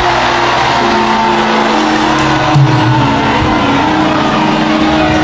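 Music with long held chords, and underneath it a large congregation cheering and shouting.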